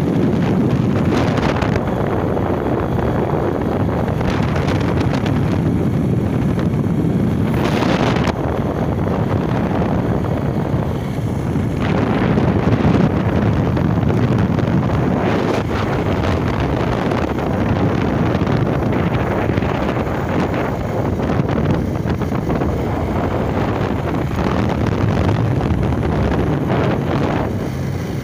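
Heavy wind buffeting on the microphone of a moving motorcycle, over the steady running of a Bajaj Pulsar 150's single-cylinder four-stroke engine as it rides along.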